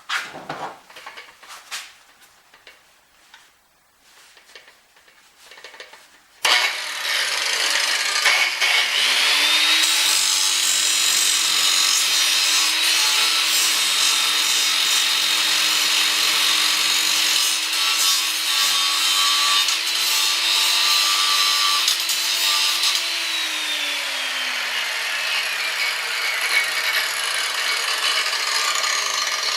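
A few light clicks and knocks. About six seconds in, a grinder starts and spins up, then grinds steadily against steel to take the heads off the rack's fasteners. Near the end its motor pitch falls slowly as it winds down, while the grinding noise goes on.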